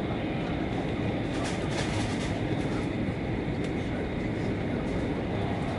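Steady running noise of a CRH5 high-speed train travelling at speed, heard from inside the passenger cabin.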